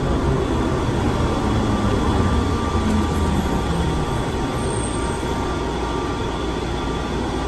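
Airport Plane Train, a rubber-tyred automated people mover, heard from inside the car as it runs and slows into a station. Its steady rumble with a faint hum eases off slightly as it comes to a stop.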